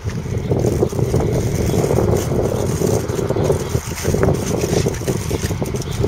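Deutz-Fahr 5660-HTS combine harvester running, its 6.1-litre six-cylinder diesel engine giving a steady, rough rumble with a few light clicks over it.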